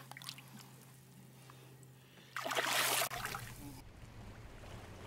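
Quiet, muffled water sound with a faint steady hum, broken a little past halfway by a loud rush of splashing water lasting under a second, then a steady low rumble of wind and water.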